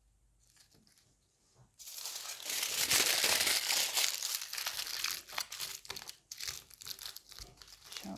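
Aluminium foil crinkling as a foil figure is squeezed and handled: quiet for the first couple of seconds, then a few seconds of dense crackling that breaks up into scattered crinkles near the end.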